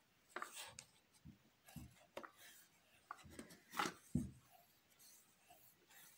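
Faint rubbing and rustling of yarn being wound around a cardboard box, with light handling knocks of the box; a soft thump just after four seconds in is the loudest.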